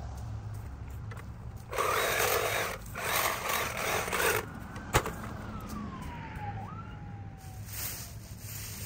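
Chainsaw cutting through dry palm fronds in two short bursts, about two seconds in, followed by a sharp snap. A faint wavering tone falls and rises afterwards.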